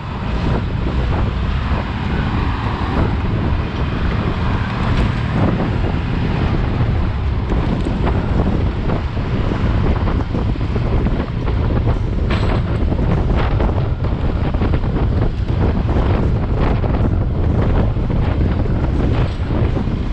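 Loud, gusty wind rushing over the microphone of a handlebar-mounted camera as a road bike rides fast close behind a flatbed truck. A low rumble of the truck and road runs underneath.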